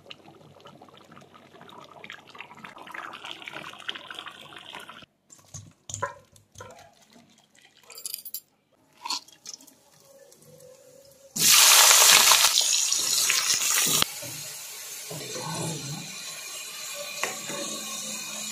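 Cooking sounds from a kitchen across several short cuts: a steady quiet hiss of food cooking in a pan, a few short clatters, and about eleven seconds in a loud rushing hiss lasting some three seconds, then a steadier hiss of a pot of rice boiling to the end.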